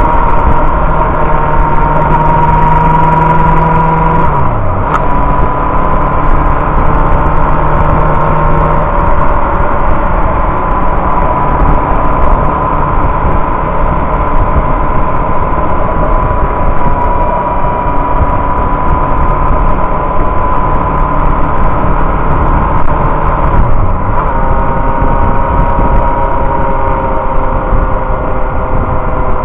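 Inline-four sport motorcycle engine running at a steady cruise under a dense rush of wind and road noise. The engine note dips and breaks briefly about four seconds in and again about 24 seconds in, as with a gear change or closing the throttle.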